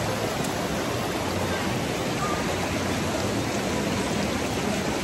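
Rapids of a rocky river rushing steadily over stone ledges, an even hiss of fast water.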